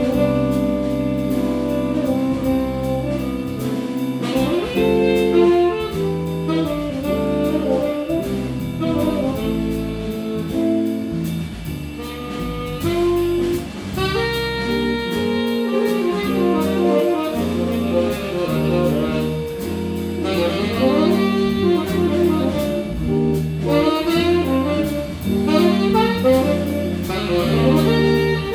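A jazz quartet playing a waltz: a tenor saxophone with electric guitar and electric bass.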